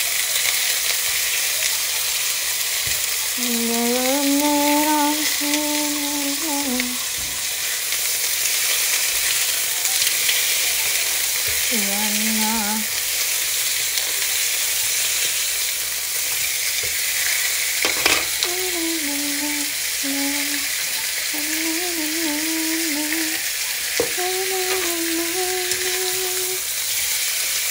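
Pork belly slices sizzling steadily as they fry in a nonstick pan and are turned with tongs, with a couple of sharp clicks. A voice hums short held notes several times over the sizzle.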